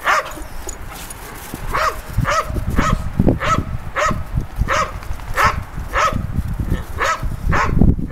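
A dog barking over and over in an even series of short barks, roughly two a second, starting about two seconds in, with a low rumbling noise underneath.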